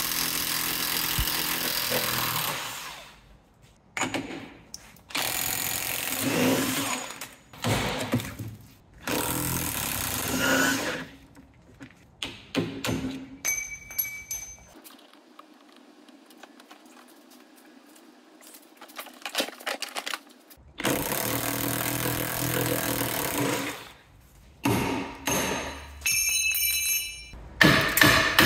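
Impact wrench run in repeated bursts of one to three seconds, undoing the front suspension bolts and nuts. A quieter stretch in the middle holds only scattered clicks and metal taps.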